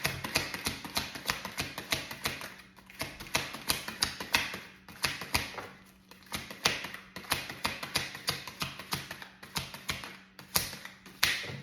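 A tarot deck being shuffled by hand: rapid clicking and flicking of cards in quick runs, broken by a few short pauses.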